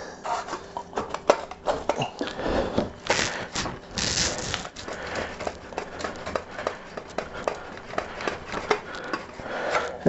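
Stainless-steel motorcycle silencer being twisted and worked off its link pipe, its slip joint stuck with old exhaust sealant: irregular metal scraping, clinking and clicking of the joint and clamp, with two louder scraping rasps about three and four seconds in.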